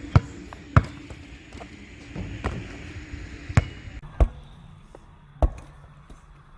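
A basketball bouncing on a hard court floor: about six sharp, irregularly spaced bounces, with a few fainter knocks between them.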